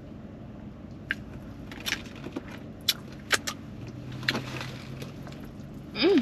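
Close-up eating sounds: scattered sharp clicks and crinkles from handling a foil-wrapped burrito and a small plastic sauce cup, with mouth and chewing noises. Just before the end comes a short "mm" hum of enjoyment that rises then falls.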